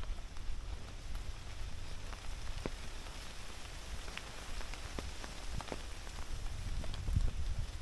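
Outdoor ambience: a steady low rumble of wind on the microphone, with scattered light clicks and ticks.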